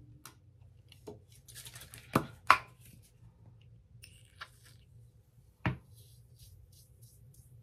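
Several sharp knocks of small objects being handled and set down on a hard surface, the loudest a pair about two and a half seconds in and another near six seconds. Between them, light rustling, and near the end a run of quick soft strokes through the hair at the hairline, about four a second.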